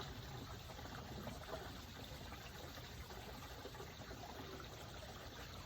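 Waterfall rushing, a steady, faint wash of falling water.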